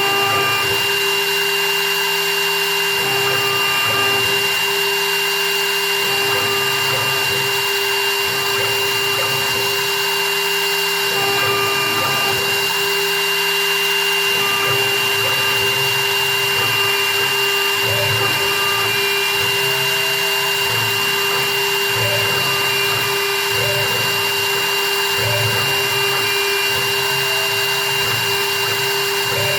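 High-speed spindle of a small CNC milling machine for wedding rings running with a steady whine, with shifting lower noise beneath it as the machine works.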